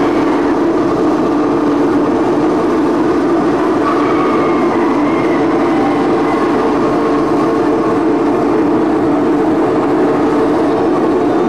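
Loud, steady wall of droning noise from a live experimental noise performance: sustained low-middle tones under a dense hiss, with no beat, and a faint higher tone coming in about four seconds in.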